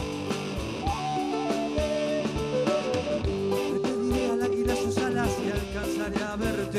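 Live Andean folk-rock fusion band playing: a wooden end-blown flute carries the melody over guitar and drum kit. It holds one long note from about halfway through.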